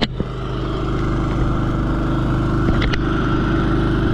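An engine running steadily at a low, even idle. There is a sharp knock at the start and a couple of light clicks about three seconds in.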